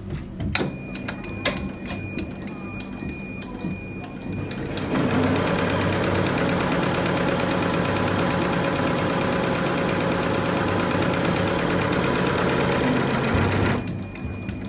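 Multi-needle embroidery machine stitching lettering: a fast, steady mechanical needle clatter. It gets clearly louder about five seconds in and drops back shortly before the end, with lighter clicking on either side.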